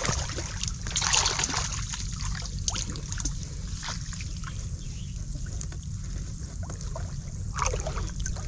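Shallow muddy water sloshing and trickling as hands grope through it for mussels, in irregular small splashes that are busiest about a second in and again near the end.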